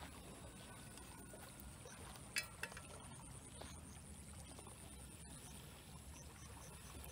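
A metal frying pan set down on the grate of a portable gas stove: two quick clanks with a brief ring about two and a half seconds in, over a faint steady low rumble.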